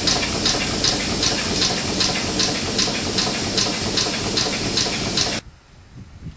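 1923 R. Wolf steam locomobile running, with a steady steam hiss and an even beat of about two and a half chuffs a second. The sound cuts off suddenly about five seconds in, leaving only faint background.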